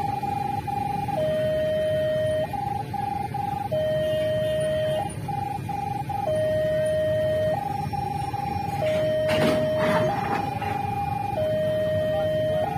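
Railway level crossing alarm sounding: an electronic signal alternating between a higher and a lower tone about every second and a quarter, the higher tone sometimes broken into quick beeps. A steady low rumble runs underneath, with a short burst of noise about nine seconds in.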